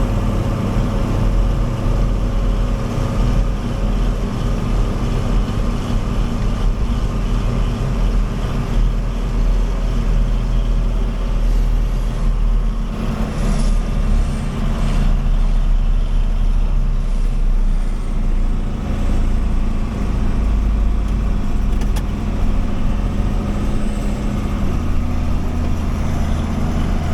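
Farm tractor engine running steadily while pulling a loaded grain cart along the road, a continuous low drone whose pitch shifts slightly about halfway through and again near the end.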